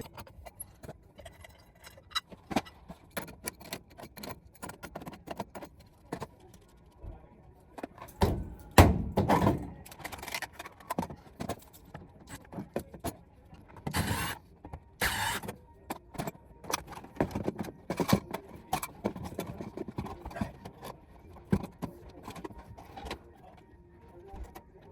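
Irregular clicks, knocks and clatter of tools and hardware being handled, with a heavier bump about eight to nine seconds in and two sharp hissing bursts around fourteen and fifteen seconds.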